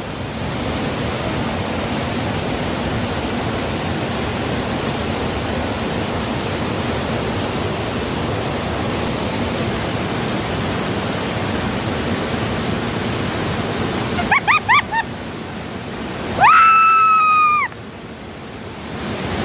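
Steady, loud rush of a waterfall's falling water. Near the end a few short voice sounds, then a loud, high-pitched call held for about a second.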